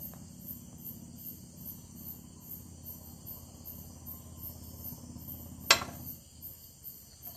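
Crickets chirping steadily, a faint high-pitched pulse repeating about three times a second, over a low hum. About six seconds in comes one short, sudden loud sound.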